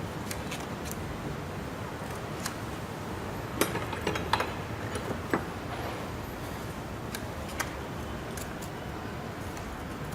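Light clicks and ticks of copper winding wire being pressed by hand into the slots of a DC motor armature during rewinding. A cluster of sharper clicks comes about four to five seconds in, over a steady low background noise.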